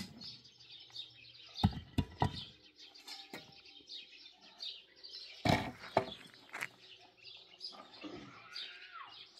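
Small birds chirping and twittering, with a few sharp knocks: a pair about two seconds in and a louder group around five and a half to six and a half seconds in.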